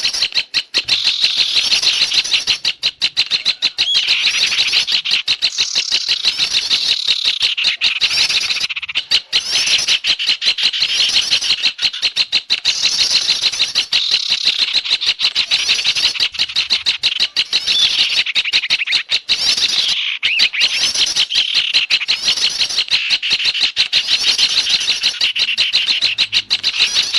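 A bird-lure recording of small garden songbirds, a noisy mix of many birds chattering at once. The calls are high-pitched, rapid and nonstop, with brief lulls about 9 and 20 seconds in.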